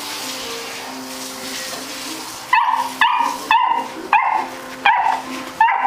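A puppy giving six sharp, high-pitched barks about half a second apart, starting a little over two seconds in. Background music with slow, held notes plays underneath.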